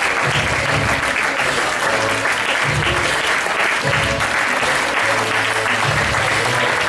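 Crowd applauding steadily over music with a regular bass beat.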